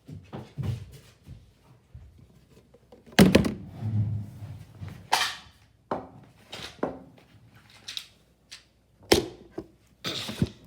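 A series of thunks and knocks from objects being handled and set down close to the microphone, with rustling between them, the loudest about three seconds in.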